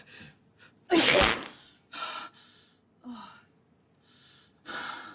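A person's big sneeze about a second in, preceded by quick gasping breaths in and followed by several heavy breaths out.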